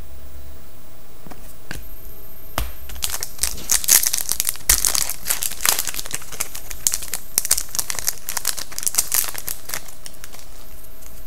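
Foil hockey-card pack wrapper crinkling and tearing as it is opened by hand: a dense run of crackles from about two and a half seconds in that stops near ten seconds.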